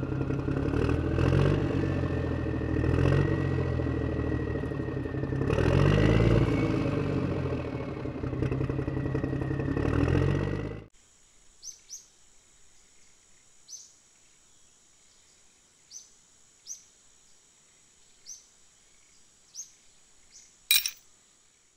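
Homemade model tractor's motor running with a low, wavering mechanical hum and clatter, cutting off suddenly about eleven seconds in. After that, a few short bird chirps over a faint steady high tone, and a sharp click near the end as a hand handles the tractor.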